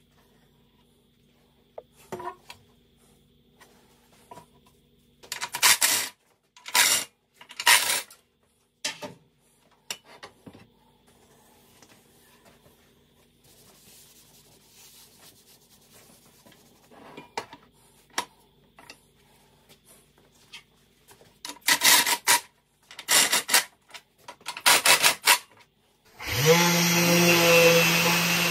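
Short rubbing strokes of a hand-held pad on a solid birch board, coming in two clusters with a few quieter ones between. Near the end a Festool random orbital sander starts, its pitch rising quickly, then runs steadily.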